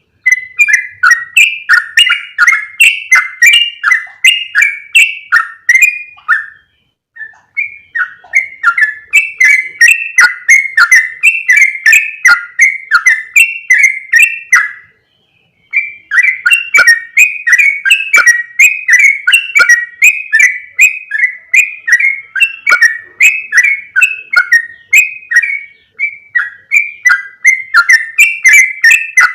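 Yellow-vented bulbul calling in a fast run of short, bubbly chirping notes, about three to four a second. It breaks off briefly twice, about a third and halfway through. This is a lure call used to attract the bird.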